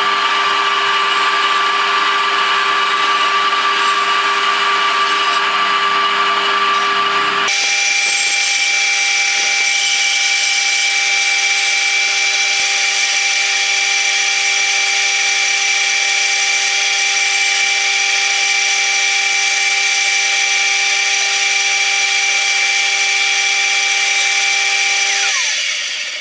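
Band saw running steadily as its blade cuts a curved opening in a wooden board. The pitch of the machine's tones changes abruptly about seven seconds in. Near the end the saw is switched off, and its pitch falls away as the motor winds down.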